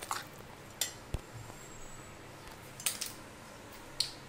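Steel spoon beating thick semolina batter in a glass bowl, clinking sharply against the glass about four times.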